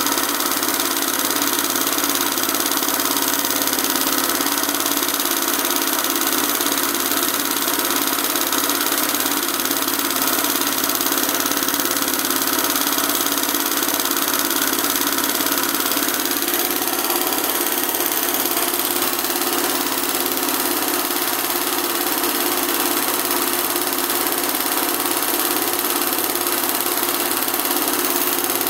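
Industrial hand-guided embroidery machine running steadily as it stitches gold cord onto fabric, a continuous even mechanical whir.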